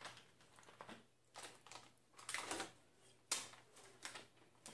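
Faint, irregular clicks and crinkles of plastic being handled, a few scattered ticks and short rustles, like a plastic water bottle and a candy packet in the hands.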